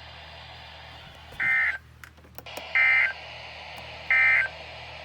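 Emergency Alert System end-of-message signal: three short, identical bursts of screechy digital data tones, about a second and a half apart, over a steady low hum and hiss.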